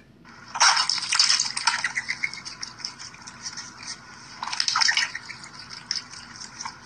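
Water splashing and dripping in a large metal bowl as a duck dabbles its bill in it and a cat drinks beside it, in irregular bursts, busiest near the start and again about two-thirds of the way through.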